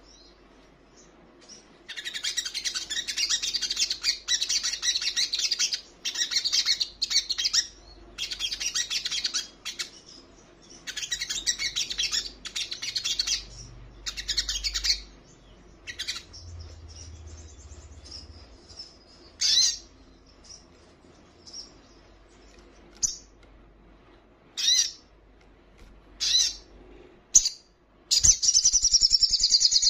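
Olive-backed sunbird singing: loud bursts of rapid, high, chattering trills a second or two long, coming one after another in the first half, then shorter single calls spaced out, and a last long trill near the end.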